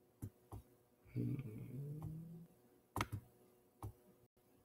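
A few soft computer clicks, about four spread through, as the pointer is clicked through images. Around the middle comes a low hummed voice sound lasting about a second.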